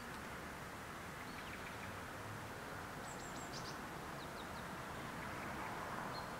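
Steady outdoor background noise with a few faint, short, high bird chirps scattered through it, a small cluster about three seconds in.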